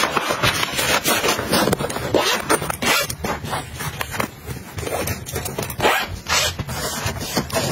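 Zipper on a fabric toiletry bag rasping in quick strokes, mixed with scraping and rustling as packets and makeup brushes are slid into its pockets.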